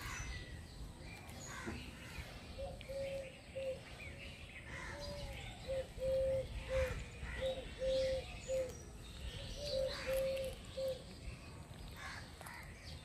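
A bird calling: a run of short notes, each held on the same pitch, from about two and a half seconds in until near eleven seconds, with fainter chirps higher up.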